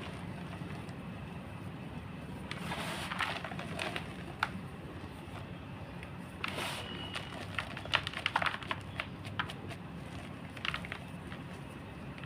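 Gym chalk being crushed, crunching in several separate bursts of crackling with sharp snaps, the densest cluster a little past the middle, over a steady low hum.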